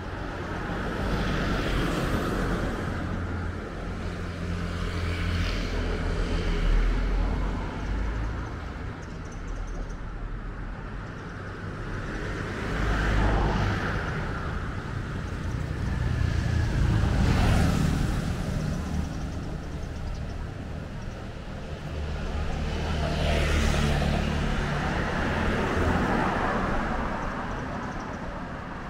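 Street traffic: several motor vehicles pass one after another, each swelling and fading over a steady low rumble.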